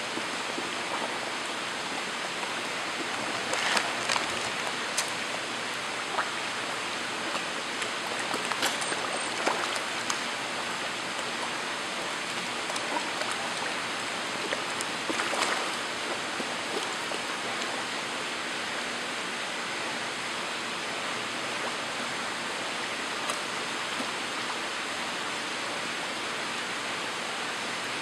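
Steady rush of pond water with a few brief splashes, from a crowd of koi churning the surface as they feed.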